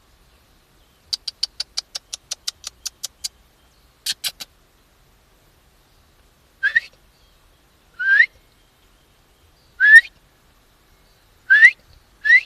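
A person calling a dog: a quick run of about a dozen short clicks, three more a moment later, then five short rising whistles, one every one to two seconds.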